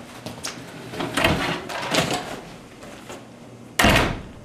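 Footsteps and light knocks as someone walks across a room, then a door shutting with a sharp bang near the end, the loudest sound.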